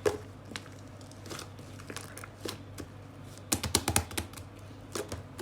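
Irregular light clicks and taps, with a quick cluster of them about three and a half seconds in, over a low steady hum.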